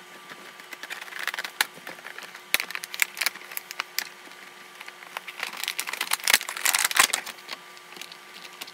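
Clear plastic action-figure packaging crinkling and crackling with many sharp clicks as it is handled and pried open, busiest a little past the middle. A faint steady hum runs underneath.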